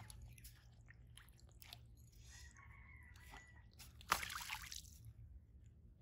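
Faint scattered clicks, then a short splash about four seconds in, the loudest sound, as a fishing line and float are pulled out of the pond water.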